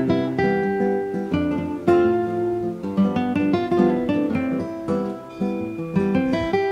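Background music: acoustic guitar playing a run of plucked notes and strummed chords.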